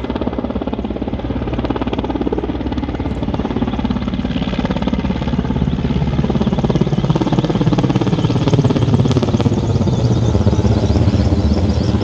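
Firefighting helicopter flying overhead, its rotor beating in a fast, even pulse with the turbine running. It grows steadily louder as it comes in low overhead.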